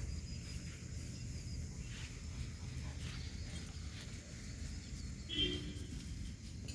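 A single short animal call about five and a half seconds in, over a steady low rumble.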